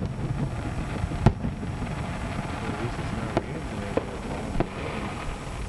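Fireworks shells going off: a sharp bang about a second in, then three smaller bangs in the second half.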